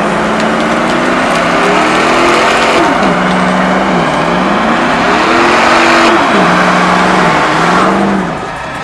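Car engine revving up and dropping back about three times over a loud, steady rushing noise, as when a car does burnouts or donuts. It eases off shortly before the end.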